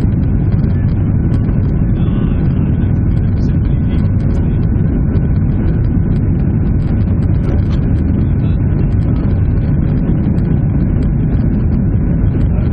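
The Boeing 737-800's CFM56 jet engines heard from inside the passenger cabin: a steady, loud, low rumble with an airy hiss above it, unchanging throughout.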